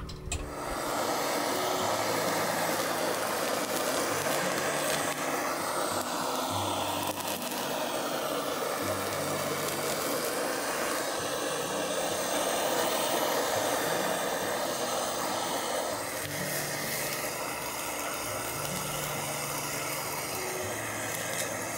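Handheld gas burner torch flame hissing steadily as it browns the cheese on top of a pizza, starting about half a second in. Soft background music plays underneath.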